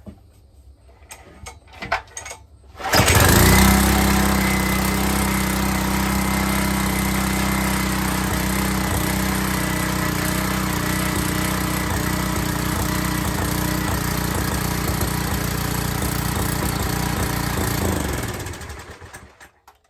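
Small gas engine of an old pressure washer starting on its first try after repair: a few faint clicks, then it catches about three seconds in and runs at a steady speed, then winds down and stops near the end, shut off with its newly rigged kill switch.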